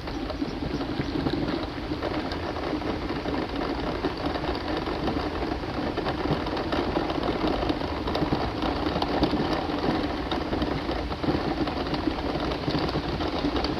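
A small electric motor running steadily, with a fast, even rattle.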